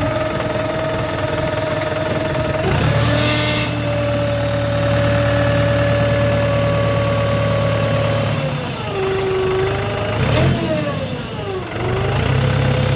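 A JCB 3DX backhoe loader's diesel engine running steadily as it works, with two sharp knocks about three and ten seconds in. Between about eight and twelve seconds the engine speed drops and picks up again.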